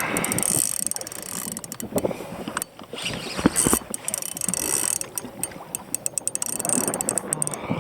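Fishing reel ratcheting in rapid, irregular runs of clicks during the fight with a big hooked fish: the drag giving line as the fish pulls against it.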